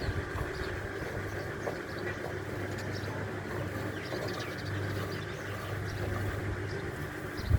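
A steady low mechanical hum, like a motor running, with a few faint high chirps.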